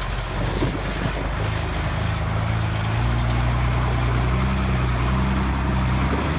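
Engine of a lifted Jeep Cherokee on large off-road tyres running under load as it crawls through shallow water and broken ice. The engine note steps up about three seconds in and then holds steady.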